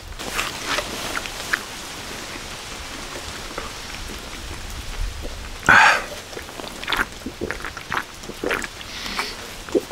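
A man drinking from a can: small clicks, swallows and rustles of a down jacket over a steady background hiss, with one short loud hissing burst about six seconds in.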